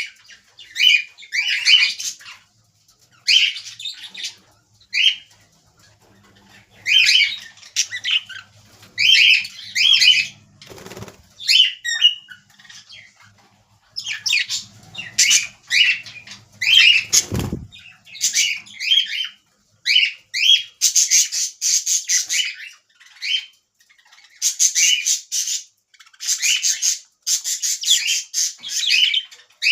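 Budgerigars chirping and squawking in short, repeated bursts, growing denser and almost continuous in the last third. Two dull thumps sound near the middle, a few seconds apart.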